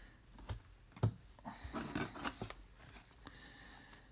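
Topps Star Wars Galaxy trading cards handled by hand. There are a couple of light taps about half a second and a second in, then card stock rustling and sliding against itself for about a second.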